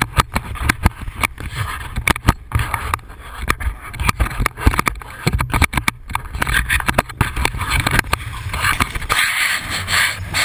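Wind buffeting an action camera's microphone in flight: a gusty low rumble broken by many short crackles and knocks, with a rushing hiss growing near the end.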